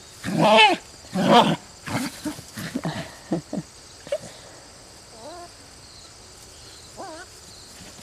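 Dogs play-growling while they wrestle: two loud growls in the first second and a half, then a run of shorter growls. Later come a couple of fainter, wavering, higher-pitched yelps.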